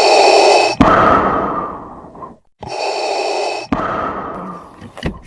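An edited-in sound effect played twice. Each time it is a loud, gasp-like rush lasting about a second that fades away over the next second or so.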